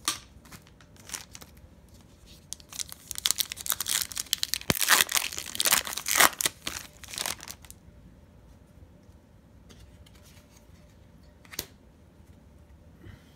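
A Panini Prizm trading card pack's wrapper being crinkled and torn open by hand: dense crackling and tearing from about two seconds in until nearly eight seconds, loudest in the middle. A single sharp tap comes near the end.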